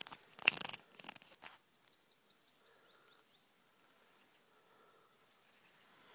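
A short cluster of rustles and knocks in the first second and a half, then quiet open-air ambience with faint bird chirps.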